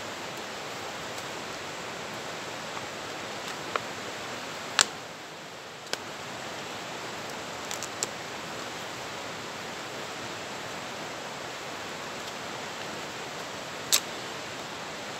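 Steady rush of a fast river running over rapids, broken by a few sharp clicks, the loudest about a third of the way in and another near the end.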